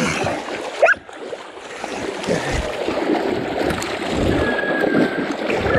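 Hunting dogs wading and moving in shallow muddy creek water, splashing and sloshing, with a brief rising squeal about a second in.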